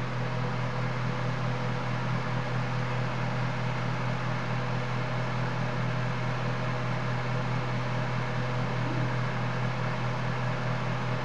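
Steady low electrical hum with an even, fan-like hiss over it, unchanging throughout, from the bench equipment while the transceiver is keyed and transmitting a 20-watt AM carrier.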